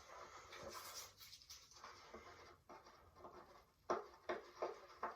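Masking tape being peeled off the inside of a wooden table-saw jig, with soft scratchy rustling, then a few sharp clicks near the end as the jig is handled.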